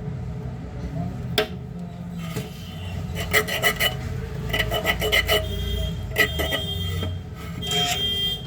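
Scraping and clicking of hand work on a small device, in short quick clusters of strokes, over a steady low hum.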